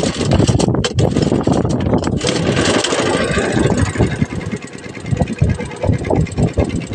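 Small fishing boat's engine running as the boat moves over choppy river water, with irregular knocks and splashes throughout.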